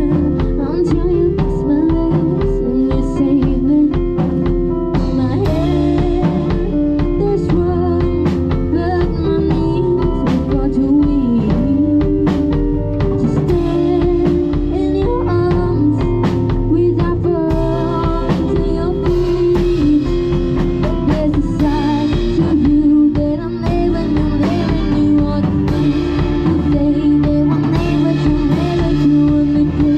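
Pop song backing track with singing, and a drum kit played along to it. Cymbals come in about five seconds in and grow brighter again a little past the middle.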